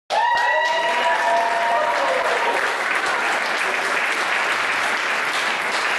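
Audience applauding in a room, with a few held cheers over the clapping in the first couple of seconds.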